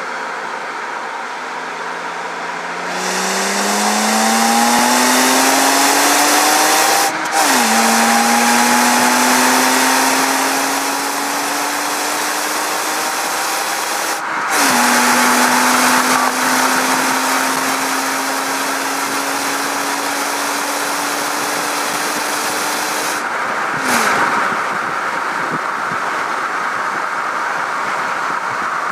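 BMW E92 325i's N53 straight-six through its stock rear silencer, accelerating up through the gears. The engine note climbs steadily and drops sharply at three upshifts, then holds a steady cruise. Heavy wind and road rush run over it all.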